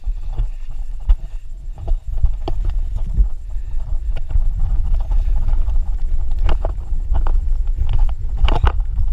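A mountain bike rattling and clattering as it rides down a rough, rocky dirt trail, with many sharp knocks over a steady low rumble of wind buffeting the camera microphone.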